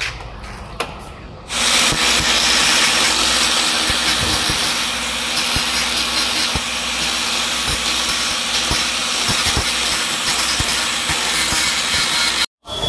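Loud steady hiss of a power tool at work in a body shop, starting about a second and a half in, with a low hum beneath and scattered clicks; it cuts off abruptly near the end.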